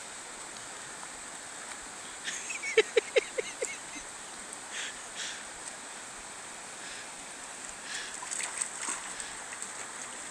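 Steady rush of a shallow river, with a beagle splashing as it wades through the water near the end. About two to three seconds in comes a quick run of short, sharp sounds and brief notes, the loudest thing heard.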